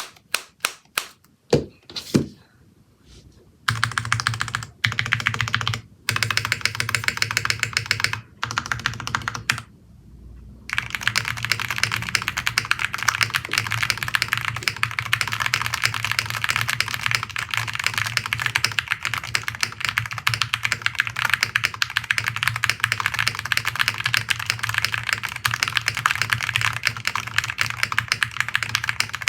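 Typing on a QK60 mechanical keyboard with lubed Cherry MX Black linear switches and PBT keycaps. It starts with a few separate keystrokes, then short bursts of typing, then steady fast typing from about eleven seconds in.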